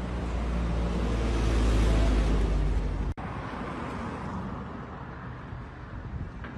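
A car passing close on a road, its engine and tyres swelling to a peak about two seconds in. The sound breaks off abruptly just after three seconds, then quieter traffic noise continues with another vehicle going by.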